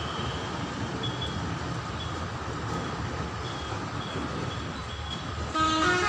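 Street traffic noise heard from above, with a few brief, faint horn toots.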